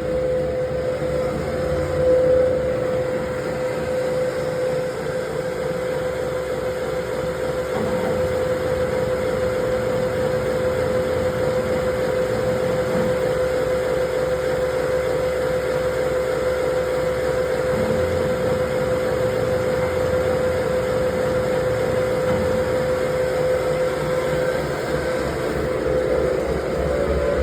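BIRO AFMG 56 mixer grinder running in grind mode with its auger turning: a steady machine hum with one constant tone throughout.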